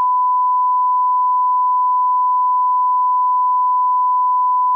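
A 1 kHz line-up test tone: one steady, unbroken pure tone that goes with the colour bars at the head of a broadcast tape and sets the reference audio level.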